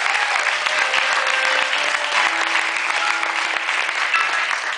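Steady applause from a small live audience, many hands clapping together.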